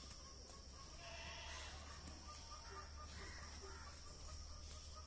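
Faint outdoor ambience with a steady low hum and high hiss, and a run of short, faint bird calls a couple of seconds in.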